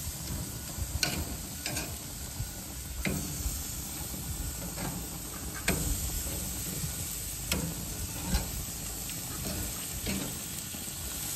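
Seasoned chicken thighs sizzling on a hot grill grate, with sharp clicks of metal tongs knocking against the grates as the thighs are flipped, every second or two.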